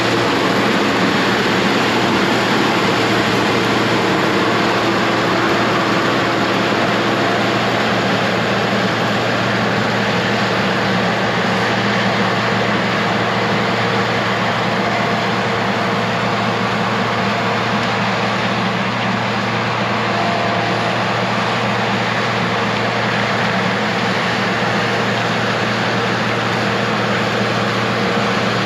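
Case IH 1666 combine running steadily while harvesting corn: a constant drone from its turbocharged six-cylinder diesel engine and threshing machinery, with a steady low hum under a broad rush of noise.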